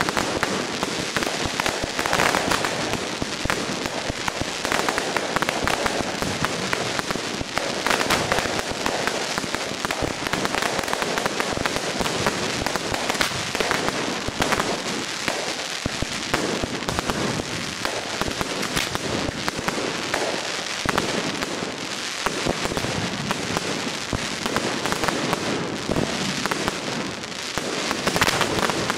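Fireworks going off in a dense, continuous barrage of rapid crackling bangs and pops, with no pause.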